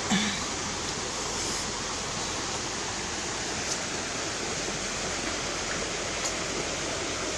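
Steady, even rushing noise with no distinct events, apart from a brief small sound at the very start and a couple of faint ticks.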